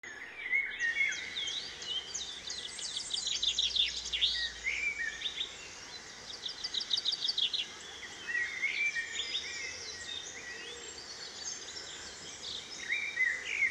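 Several forest birds calling, with quick trilled runs of chirps and shorter whistled chirps, over a steady hiss of a stream running over rocks.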